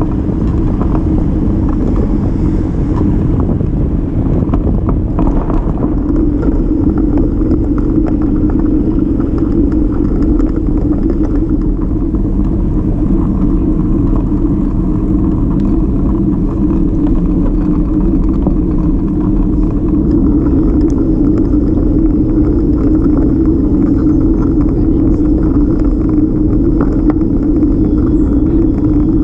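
A folding bicycle rolling over brick paving, heard as a steady, loud low rumble of tyre and road vibration.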